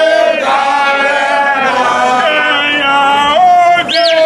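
A group of football supporters, mostly men, chanting and singing together in long held notes. Near the end a single high note rises and falls above the singing.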